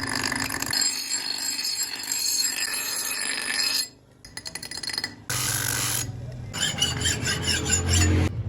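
Rasping and scraping of a tool on metal, in short pieces broken by cuts, with a brief near-silent gap about four seconds in.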